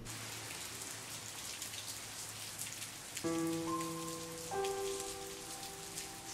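Steady rain falling, a fine patter of drops. About three seconds in, soft music of held chords begins over it, with the chord changing once more about a second and a half later.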